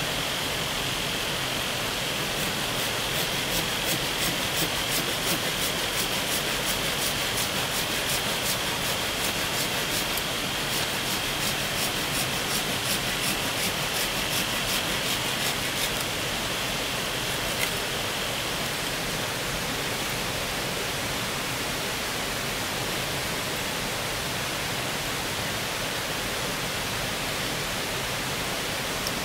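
Steady rushing of a rocky forest stream. Over roughly the first half a faint high steady tone and fast, regular high ticking ride over it, then stop.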